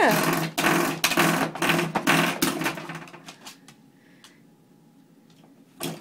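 Spring door stop set off by the dog, twanging with a fast buzzing rattle that dies away about three seconds in. A short sharp twang comes again near the end.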